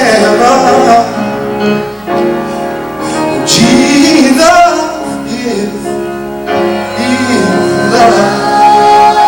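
Gospel music: singing voices with instrumental accompaniment.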